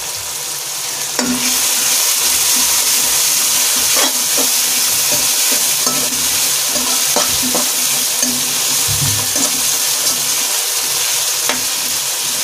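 Chopped onions, tomatoes, ginger and green chillies sizzling in hot oil in an aluminium pressure cooker while being stirred with a metal spoon, which scrapes and knocks against the pot now and then. The sizzling gets louder about a second in.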